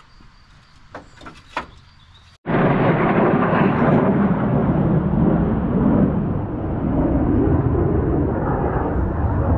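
A few faint clicks, then, from about two and a half seconds in, thunder rumbling loudly and continuously, rising and falling in strength, from a lightning strike close by.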